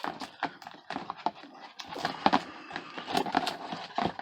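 Hard plastic card holders clacking and rattling against one another and the toolbox as a handful of cards is rummaged through and gathered up, in a rapid irregular series of small knocks.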